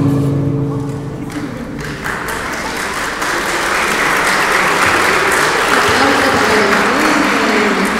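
The last notes of a chacarera recording fade out, and about two seconds in an audience breaks into applause that swells and keeps going.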